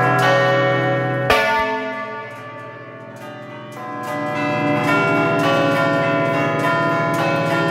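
Church bells heard up close in the bell chamber, struck by hand in quick succession by ringers working the clapper levers of the tower's bell keyboard (tastiera). About a second in there is one loud clang, the ringing dies down briefly, then quick rhythmic strikes pick up again.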